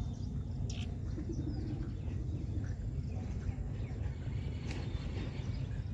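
Birds calling over a steady low rumble, with one brief sharp tick about a second in.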